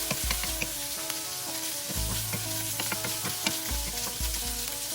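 Sliced pork belly sizzling as it dry-fries in a pan without oil, its own fat rendering out, with scattered small pops and crackles.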